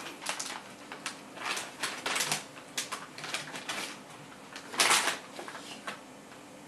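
Irregular rustling and clicking handling sounds, with one louder crackle about five seconds in.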